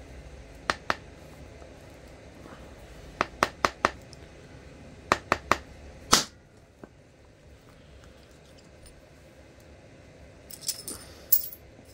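Antler punch being struck to drive flakes off a flint preform: sharp taps in groups of two, four and three, then a single louder strike about six seconds in. A few thin, high clinks come near the end.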